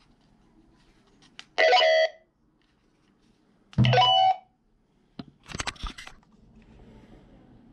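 Midland LXT500 two-way radios sounding two short electronic tone bursts about two seconds apart from the radio speaker. A quick run of plastic clicks and rattles follows as the radios are handled.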